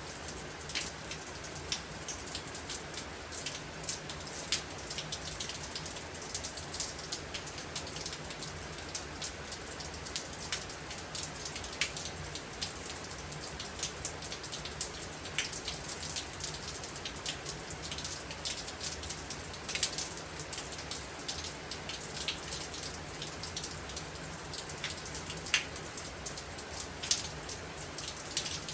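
Steady heavy rain with many individual drops striking a hard surface as sharp ticks and splats, over a faint low steady hum.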